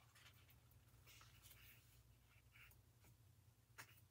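Near silence with faint rustling of a paper sticker sheet being handled, and one light tap near the end.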